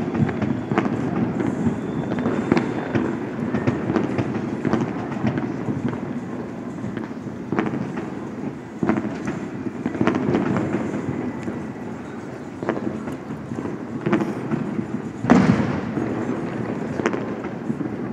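Many fireworks going off at once: a constant din of overlapping bangs and crackling, with the loudest bang near the end.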